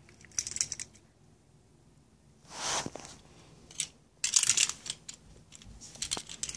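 Hot Wheels die-cast toy cars clicking and clattering as they are handled, flipped and tipped over on a ledge, in short clusters of small knocks, with a brief hiss about two and a half seconds in.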